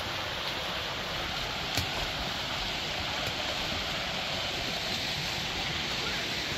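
Creek water rushing over rocks below a wooden footbridge, a steady even rush, with a single light knock about two seconds in.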